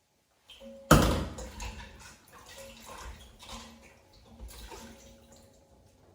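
Water splashing, starting suddenly about a second in with a loud splash, then uneven smaller splashes that fade toward the end.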